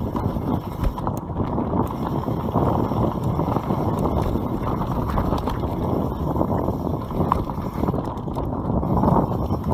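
YT Capra mountain bike ridden fast downhill on a dry dirt trail: the tyres rumble over the ground and the bike rattles steadily, with a few sharp clicks, and wind buffets the microphone.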